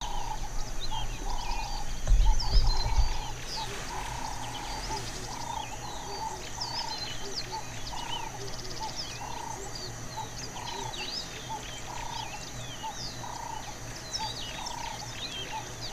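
Wild birds calling together: many short chirps and whistles, a lower call repeated at an even pace about once or twice a second, over a steady high insect hum. A brief low rumble about two seconds in is the loudest sound.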